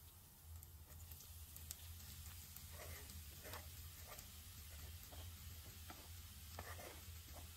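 Faint, brief scrapes of a spoon stirring food in a pan, about six strokes spread over a few seconds, over a low steady hum.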